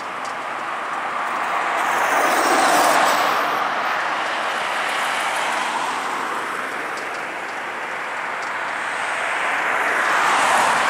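Road traffic passing close by: tyre and engine noise swells and fades twice, loudest about three seconds in and again near the end.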